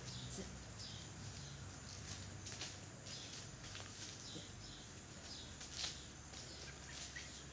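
Faint, irregular rustling of footsteps, a person's and a dog's, through dry leaves on grass.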